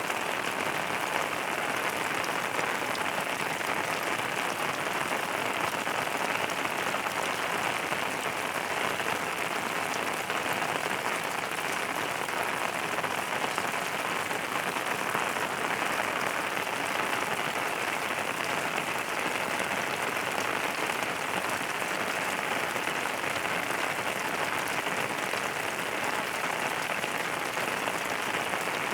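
Steady rain falling, an even patter of many drops.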